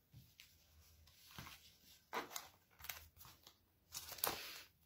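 Faint rustling of paper flashcard sheets being handled and swapped, in a few short bursts, the longest near the end.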